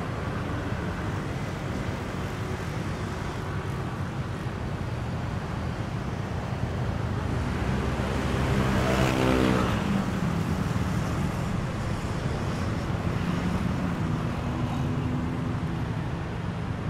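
Steady street traffic noise, with a motor vehicle's engine passing close, growing loudest about nine seconds in and then fading away.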